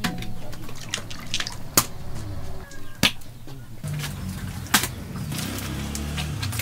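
Raw chicle gum mass being worked by hand in a metal basin: wet, sticky dripping and sloshing, with three sharp knocks.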